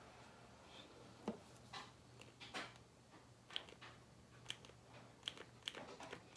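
Near silence with a low steady hum, broken by faint scattered clicks and taps of makeup items being handled: a makeup sponge and a concealer. The taps come more often in the second half.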